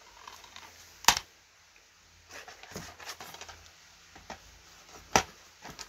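Plastic DVD cases clacking and clicking as they are handled and set down. There is a sharp clack about a second in and another about five seconds in, with lighter clicks and rustling between.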